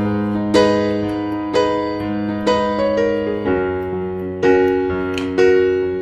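Background piano music, a note or chord struck about once a second at an even pace.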